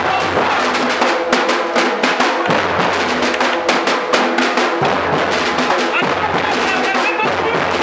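Hand-carried drums, including a large bass drum, beating a lively rhythm while a crowd chants along.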